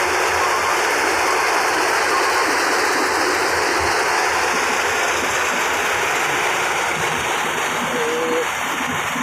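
Yanmar combine harvester running steadily, a dense, even rushing noise of its machinery.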